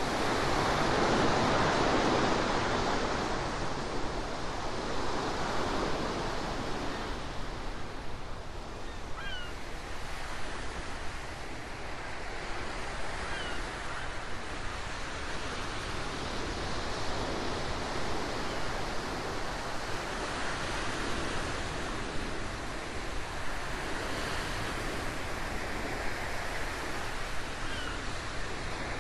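Ocean surf: waves washing in and drawing back in slow surges every few seconds, the loudest swell coming about a second in.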